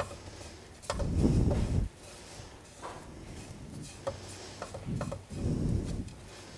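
A silicone spatula stirring and scraping dry oatmeal around a non-stick frying pan as it dry-roasts, in a stroke about a second in and another near the end, with a few light clicks between.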